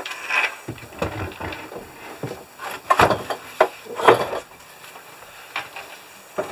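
Plastic case of a portable fridge knocking and scraping against a plywood cabinet as it is lowered and shifted into place, with a string of sharp knocks, the loudest about three and four seconds in, then quieter handling near the end.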